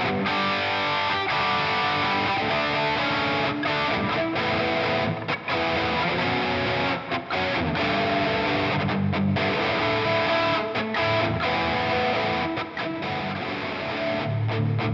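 Electric guitar played through a Valeton GP200 multi-effects unit on a distortion sound, ringing notes and chords in phrases with a few short breaks, moving to low notes near the end.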